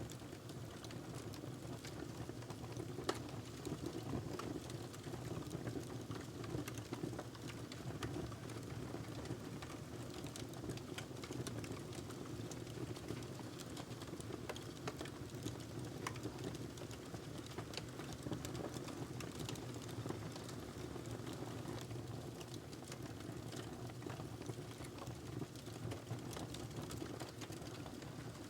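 Wood fire crackling in a fireplace: a steady low rumble of burning with frequent small pops and snaps, and one louder pop about three seconds in.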